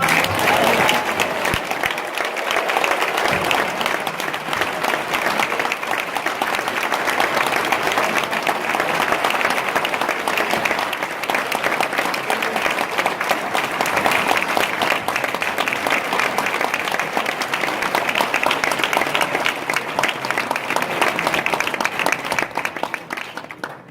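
Audience applauding steadily for over twenty seconds, then cutting off abruptly.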